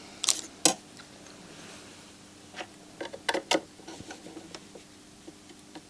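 Small sharp clicks and taps of metal tweezers nudging a chip into position on a circuit board: two near the start, a quick cluster of about five around the middle, then a few lighter ticks.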